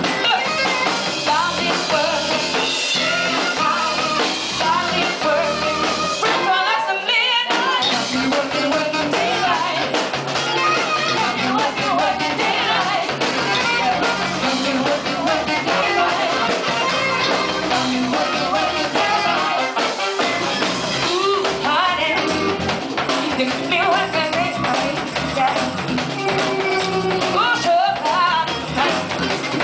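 Live band performing a song: a woman singing lead over a drum kit and electric guitars. The low end drops out briefly about seven seconds in.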